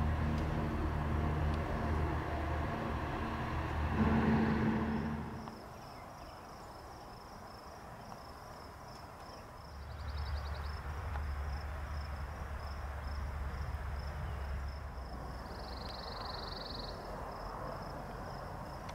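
A steady low engine hum that drops away about five seconds in and comes back about ten seconds in. Insects chirp in a quick, even pulse from about six seconds on.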